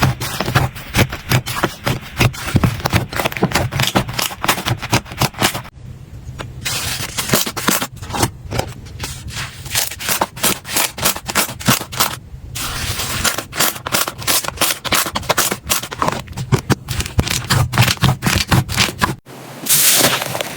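Slime being squished and pressed, giving a dense run of rapid crackles and pops. The sound breaks off briefly three times.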